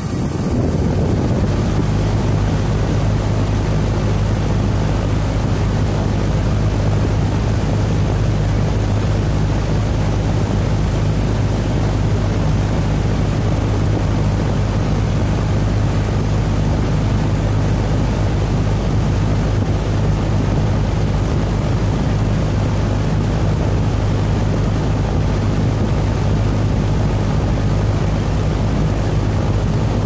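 2014 2-ton Goodman central air conditioner's outdoor condensing unit running just after start-up: a steady hum with the rush of air from the condenser fan. It comes up to full level within the first second, then holds even.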